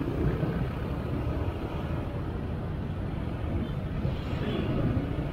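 Traffic noise of motorcycles and scooters idling in a jam: a low, steady engine and street noise.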